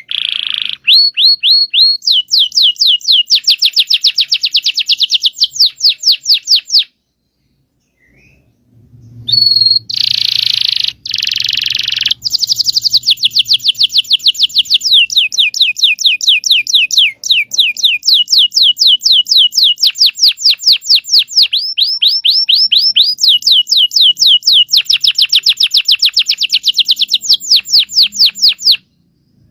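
Domestic canary singing long, fast rolling trills of rapidly repeated high notes, broken by a short pause about seven seconds in.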